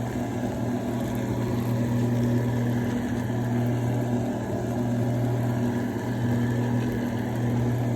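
A steady low motor hum with a faint hiss over it.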